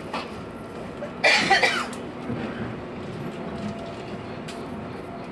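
Steady running noise heard inside a moving train carriage, with a short, loud burst from a person's voice about a second in.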